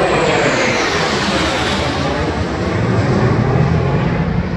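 USAF Thunderbirds F-16 fighter jets flying overhead in formation: loud jet engine noise with a high whine that falls in pitch over the first couple of seconds as they pass, and a deep rumble that builds toward the end.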